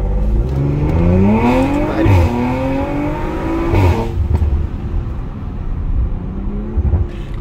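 Audi RS4 B9's Stage 2 tuned 2.9-litre twin-turbo V6, heard from inside the cabin, pulling hard in Dynamic mode with the active exhaust open and catless downpipes fitted. The engine climbs in pitch for about four seconds, with a brief break about two seconds in, then drops sharply at a gear change and runs on steadily.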